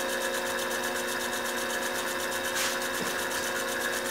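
Small CNC milling machine's spindle running while a fine end mill cuts a shallow key slot in a brass tube on a slow feed: a steady motor whine with a fast, even pulsing hiss from the cut. There is a brief louder hiss about two and a half seconds in.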